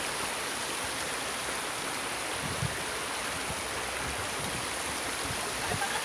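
Shallow creek water running over rocks: a steady rush of flowing water.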